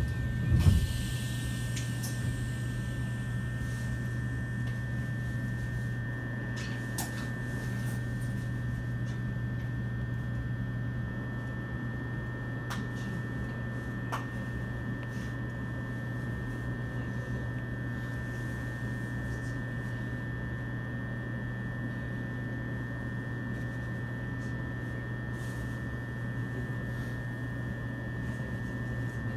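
Steady hum and high whine of an E129-series electric train's onboard equipment, heard inside the passenger car while the train stands still. There is a short knock about half a second in and a few faint clicks later.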